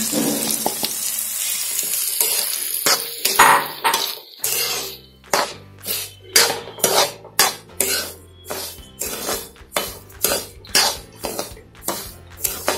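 Semolina sizzling as it is tipped into hot oil with the tempering. Then a metal spoon scrapes and stirs it against the pan in regular strokes, about two a second, as the semolina is dry-roasted.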